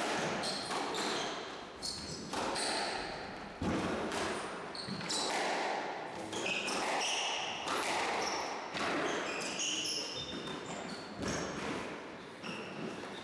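Squash rally: repeated sharp smacks of the ball off the rackets and court walls at an irregular pace, with short high squeaks of shoes on the wooden floor.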